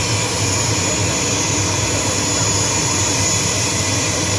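Steady turbine whine over a low rumble from a parked ATR turboprop airliner's engine running.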